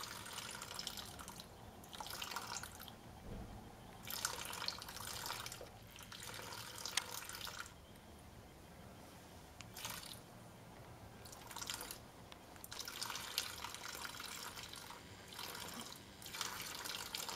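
A thin stream of water splashing and trickling into a shallow basin. It comes in spells of a second or two with quieter gaps between.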